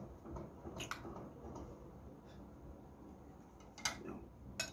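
A few light clicks of a metal spoon against a plate, about three of them, spread through a quiet stretch of eating.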